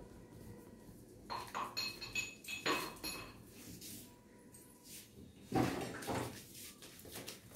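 A golden retriever puppy knocking a metal object about while playing: a few light clinks, each with a short ringing, then a louder, duller knock about five and a half seconds in.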